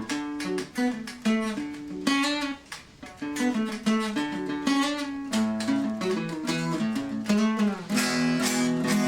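Acoustic guitar music: single notes picked in a quick, running melody, with a few notes held longer near the end.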